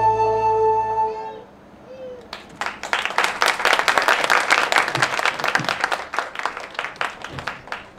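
The last held chord of the stage music dies away about a second in. After a short lull an audience breaks into applause, dense and steady, which cuts off suddenly at the end.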